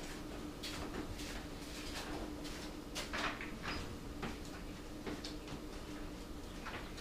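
Footsteps on a concrete floor and a plywood door being pushed open, with scattered knocks and scrapes, under a faint steady hum.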